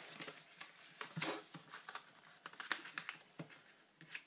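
A sheet of paper being folded and creased by hand, with irregular rustling and crinkling; the loudest crinkle comes about a second in.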